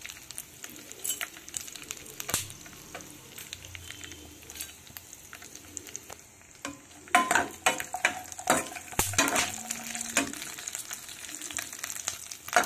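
Dry fruits and makhana sizzling as they fry in desi ghee in a pan, a steady hiss under the sharp clicks and scrapes of a steel ladle stirring against the pan. The ladle's clatter is loudest a little past halfway and again at the very end.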